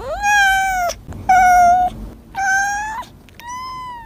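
A white cat meowing four times in a row in a high, thin voice, each meow about half a second long, the first one rising in pitch as it starts.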